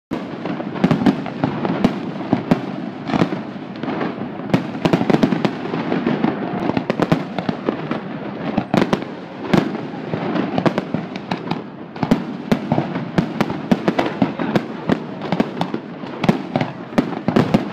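Fireworks display: many sharp bangs of bursting shells in quick, irregular succession, over a continuous rumbling haze.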